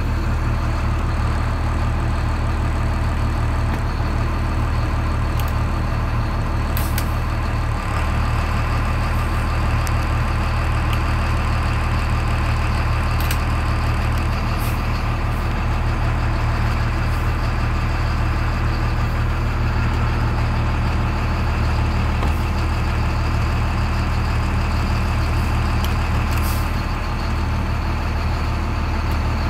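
IC school bus's diesel engine idling steadily, with a few faint brief ticks over it.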